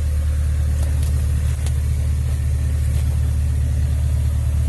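Engine idling with a steady, deep hum.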